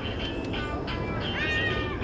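Music playing, with a high tone about a second and a half in that rises and then falls.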